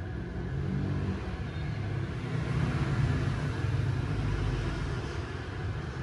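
Low, steady rumble of passing road traffic, swelling a little about halfway through.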